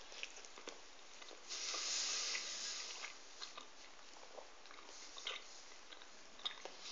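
Faint chewing of a mouthful of sugar-glazed doughnut, with small scattered mouth clicks. A soft, even hiss lasting about a second and a half comes about a second and a half in.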